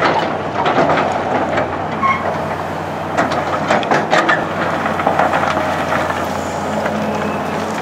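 Cat 320BL hydraulic excavator's diesel engine running steadily under working load, with repeated clanks and knocks as the bucket works the rocky dirt, most of them about three to four and a half seconds in.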